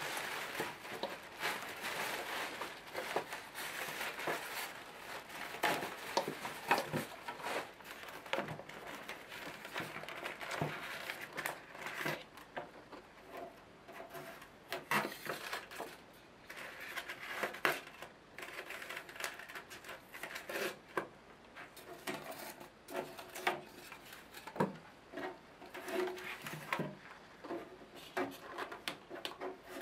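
Clear plastic bag crinkling and rustling as it is worked off an AV receiver, dense at first, then sparser handling noise with scattered light taps and rubs as hands move over the receiver's case.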